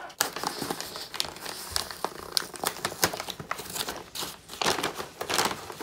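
Five Guys brown paper takeaway bag crinkling and rustling in a dense run of irregular crackles as it is opened and food is pulled out of it.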